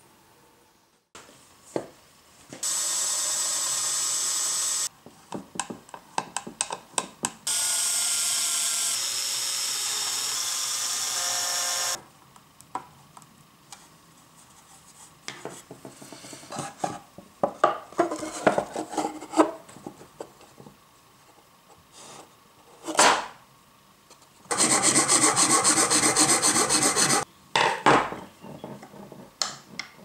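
Woodworking on pine pallet wood: three stretches of steady scraping with sudden starts and stops, the last with a fast, even stroke rhythm, separated by scattered clicks and knocks of wooden parts and tools being handled.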